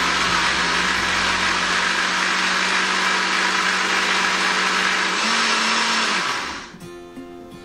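Countertop blender running full power, blending a thick apple, milk and flour batter. Its hum rises slightly about five seconds in, then it switches off and winds down near the end.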